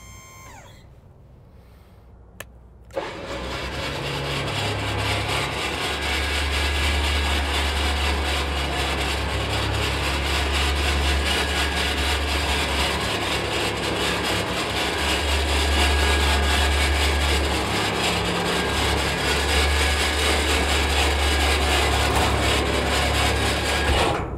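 Switch-N-Go hydraulic hoist system running as it pulls the roll-off dumpster body back onto the truck and lowers it level on the frame: two clicks, then about 3 s in a loud steady mechanical drone with a low hum that swells and eases, cutting off suddenly near the end.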